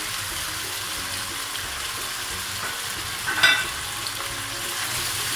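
Minced beef and fried onions sizzling steadily in oil in a pot on the stove. One brief, louder sound comes about three and a half seconds in.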